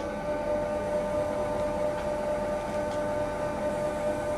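Forcipol metallographic grinder-polisher running with its Forcimat specimen head: electric drive turning the plates with a steady whine of several even tones over a noise hiss.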